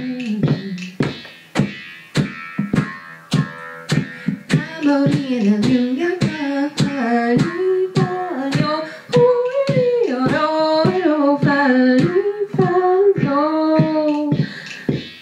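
A woman singing a melody into a microphone over a steady beat of sharp clicks, a little over two a second.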